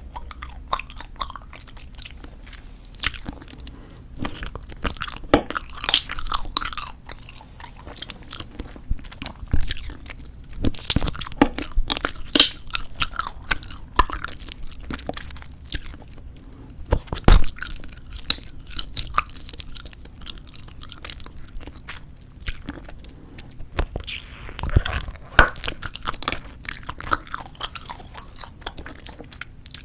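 Close-miked chewing of squeezable tube bubblegum: an irregular run of sharp clicks and smacks from the mouth.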